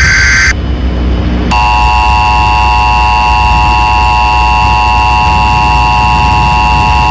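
Emergency Alert System tones. The end of a SAME digital header burst, a harsh data screech, stops about half a second in. About a second later the steady two-tone EAS attention signal starts and holds, all over a low hum.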